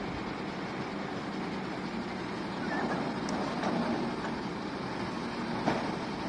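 Truck engine running steadily, powering the truck-mounted hydraulic crane as it handles a steel shipping container, with one short knock near the end.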